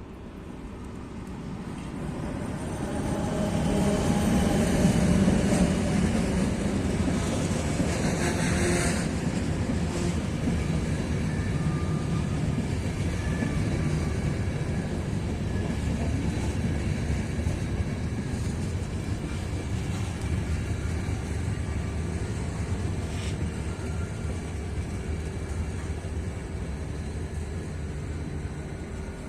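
Škoda-built ČD class 380 electric locomotive and its passenger coaches running past. The rumble of wheels on rails builds over the first few seconds, peaks about five seconds in and then holds steady, with a brief high hiss about eight seconds in.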